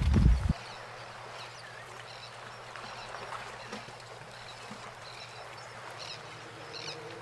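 A loud low rumbling noise cuts off abruptly about half a second in. After it comes a quiet outdoor lakeside hush with a few faint, short bird chirps.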